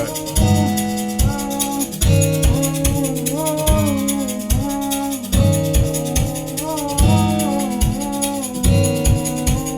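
A trap-amapiano ('trapiano') beat playing: repeated low kick and bass hits, a fast shaker pattern on top, and a melodic line whose notes slide up and down in pitch.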